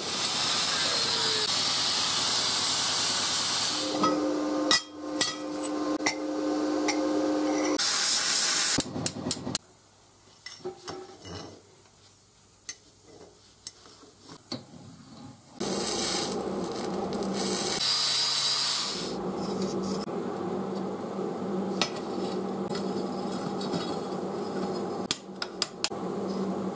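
Arc welding on steel plate: the arc hisses steadily in stretches of a few seconds, between quieter spells of bench work with sharp taps and clinks of metal.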